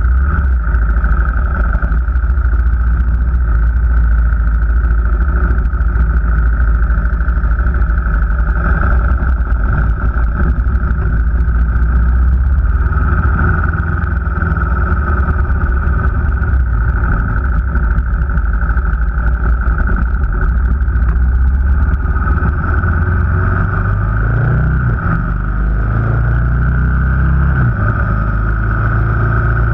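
Car driving at speed: steady engine and road noise. In the last third the engine note climbs as the car accelerates.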